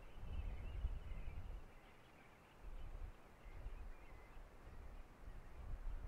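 Wind gusting on the microphone as a low rumble that eases briefly about two seconds in, with faint bird calls above it.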